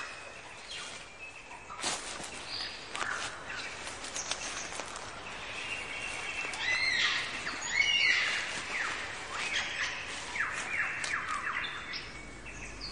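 Forest birdsong: a dense mix of whistles, chirps and repeated downward-sweeping calls, with a sharp crack-like note about two seconds in and the calls busiest around the middle.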